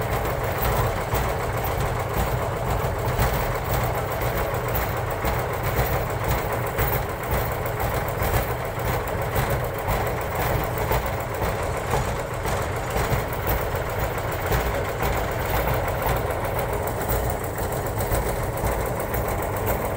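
Combine harvester's diesel engine running steadily.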